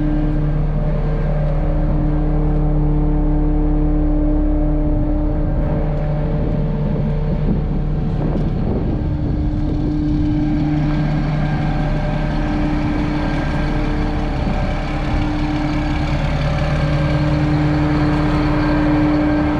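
Diesel engine of a 2001 Freightliner FL80 rear-loader garbage truck idling steadily, a constant hum.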